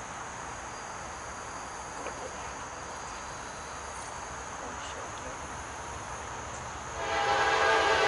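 Steady insect chirring, then about seven seconds in the horn of the lead Norfolk Southern GE C44-9W locomotive sounds loudly as a long, steady chord on the approaching intermodal freight train.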